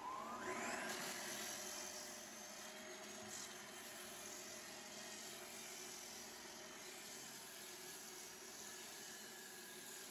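Floor edge sander spinning up with a rising whine, then running steadily as its disc sands down new oak parquet strips.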